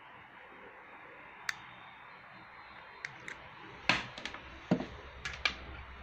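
Scattered sharp clicks and light knocks of a plastic watch security display stand and its small parts being handled and set down on a tabletop. There is a single click early, then a cluster of them about three to five and a half seconds in, over a faint steady hiss.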